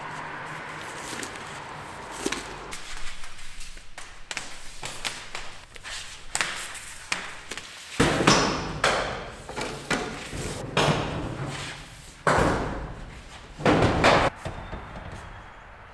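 Heavy 6-gauge stranded electrical cable being pulled off its spool and dragged across a concrete floor, with irregular thumps and scrapes that grow louder about halfway through.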